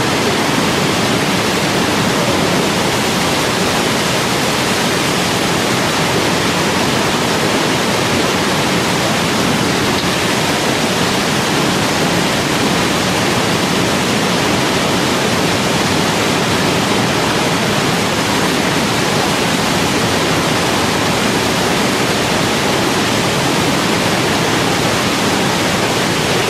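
Niagara Falls: a steady, loud rush of falling water, an even noise with no change.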